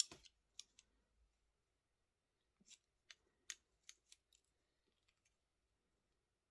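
Sharp metallic clicks from a Böker Plus Kaizen folding pocket knife being handled: one loud click at the start and a few lighter ones just after, then a run of quick clicks a few seconds in.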